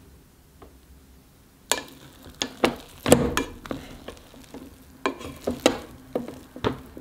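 A plastic rice paddle stirring freshly cooked bamboo-shoot rice in a rice cooker's nonstick inner pot. About ten short scrapes and taps against the pot, starting a little under two seconds in.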